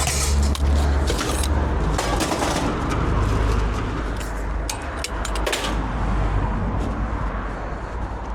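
Vehicle engine running with a steady low rumble, with scattered short metallic clinks and knocks over it.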